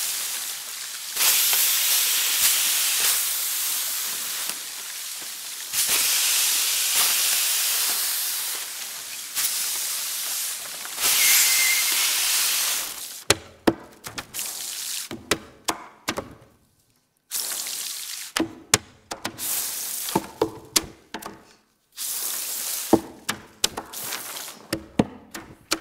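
Crumpled paper rubbed and scraped across tabletops, a loud rushing hiss in long swells for about the first thirteen seconds. Then the hiss breaks up into sharp taps and knocks of hands on the tables, with short silent gaps between.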